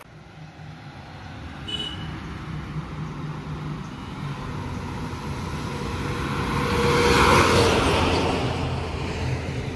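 Road vehicle engine running steadily while travelling, with a broad rush of noise that swells to a peak about seven seconds in and then fades.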